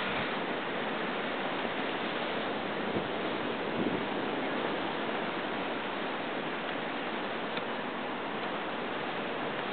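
Steady wash of ocean surf breaking on a rocky shore, with a slight swell about four seconds in.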